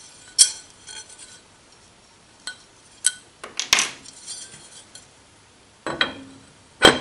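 Steel parts being handled: a drive shaft collar on its round steel plate, an Allen key and a keyed steel shaft clinking and knocking together as the collar is fitted onto the shaft. About seven separate sharp metal clinks, the loudest about half a second in and near the end.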